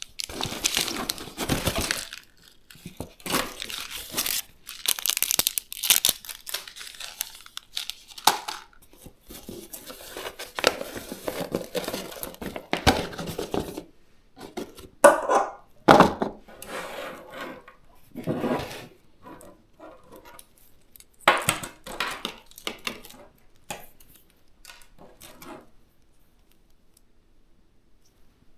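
Packaging torn open and crinkled by hand, a run of irregular rustling and tearing bursts with a few sharp clicks, tailing off near the end.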